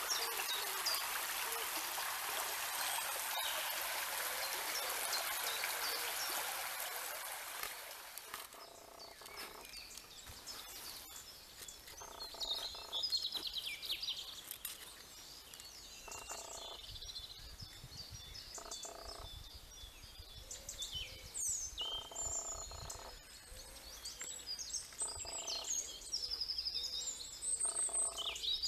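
Shallow stream running over stones, a steady hiss of water for the first eight seconds. After a sudden cut, birds singing and calling, short high chirps scattered through the rest.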